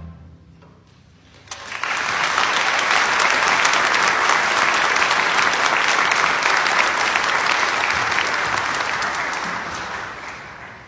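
An audience applauds: after a moment of quiet it starts about a second and a half in, holds steady, and dies away near the end.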